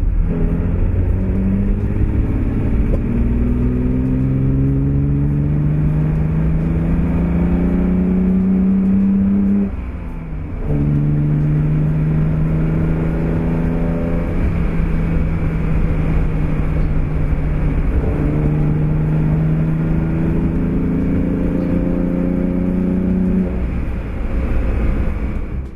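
Maserati 3500 GT's 3.5-litre twin-cam straight-six pulling under acceleration, heard from inside the cabin: the engine note climbs steadily, drops with an upshift about ten seconds in, then climbs again and eases off near the end.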